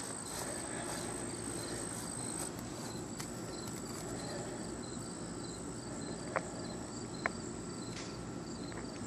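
Outdoor ambience of insects chirping: a steady high-pitched trill with a regular repeating chirp under it. Two small faint clicks come about six and seven seconds in.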